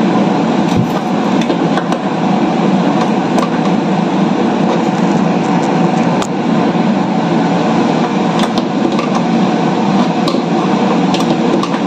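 Steady mechanical drone, with a few light clicks and scrapes of hand tools as a caster is worked on the underside of a wooden cabinet.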